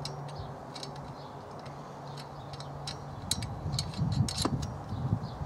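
Metal pedal-box parts being handled: a scatter of light clicks and taps, sparse at first and busiest about three to four and a half seconds in, over a faint low steady hum.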